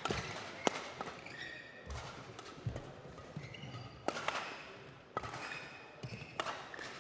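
Badminton rally: sharp racket-on-shuttlecock strikes about once a second, with short squeaks of players' shoes on the court floor between them.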